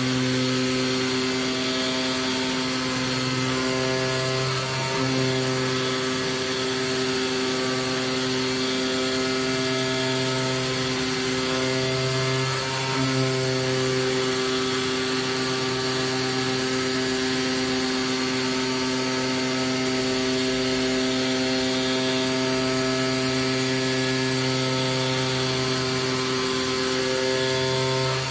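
AOKE DCZ70 digital flatbed cutter running: a steady machine hum with a constant hiss, its pitch shifting briefly a few times.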